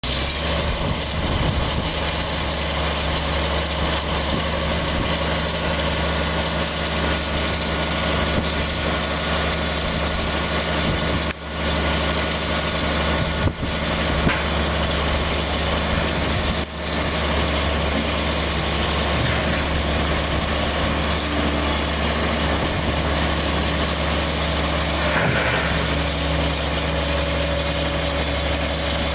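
Engine idling steadily, its level dipping briefly a few times.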